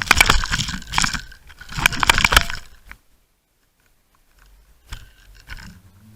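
Crunching, scraping noise full of sharp clicks, picked up underwater by an underwater camera's internal microphone, coming in three rough bursts over the first two and a half seconds and then cutting off; a few faint clicks follow near the end. The uploader presents it as the sound of a pike.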